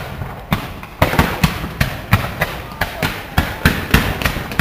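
Fireworks display: a rapid run of sharp firework bangs, about three a second, over a continuous noisy hiss.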